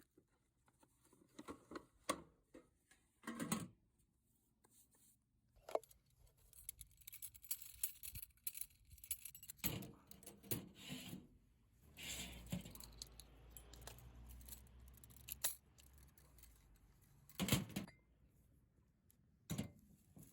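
Camping gear being handled by hand: scattered clicks, clinks and knocks with rustling between them, and a low rumble for a few seconds past the middle.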